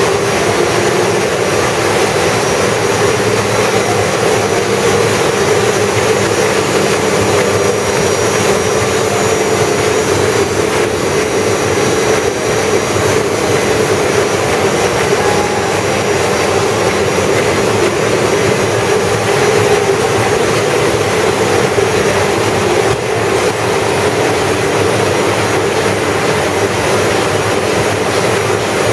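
MAN Roland 300-series sheetfed offset printing press running, a loud steady mechanical drone and hiss with no clear beat.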